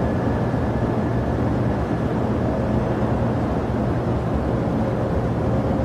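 Steady jet airliner engine noise: a low hum with a faint whine above it, holding level without rising or falling.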